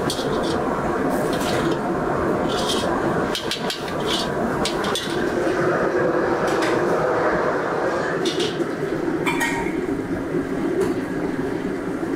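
Busy commercial kitchen background: a steady roar with scattered clinks of dishes and utensils.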